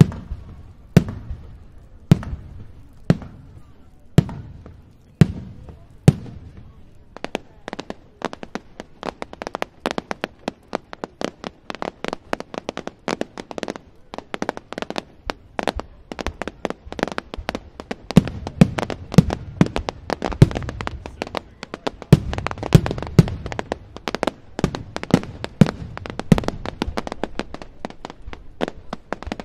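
Fireworks display: a string of loud single bangs about once a second, then from about seven seconds a dense, rapid crackle of many small reports, with heavier bangs mixed back in from about eighteen seconds.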